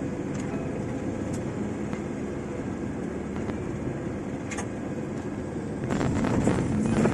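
Engine and road noise heard from inside a vehicle moving slowly over a rough, unfinished village road, with a few faint knocks. The noise grows louder and rougher about six seconds in.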